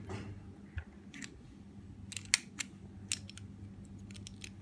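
Plastic pieces of an RS3M 2020 magnetic speedcube clicking and snapping against each other as they are fitted back together by hand, freshly fitted with extra magnets: a series of light, irregular clicks, the sharpest a little past two seconds in.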